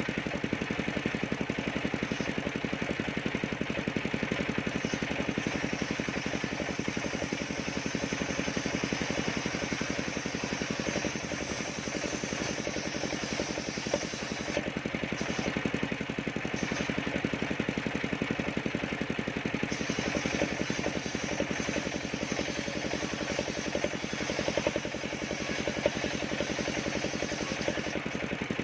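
Engine of a mobile circular sawmill running steadily at an even speed.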